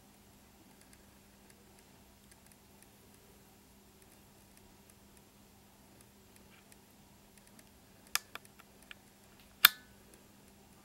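Faint scattered ticking over a low steady hum. About eight seconds in come a few short clicks, then one loud sharp click shortly after.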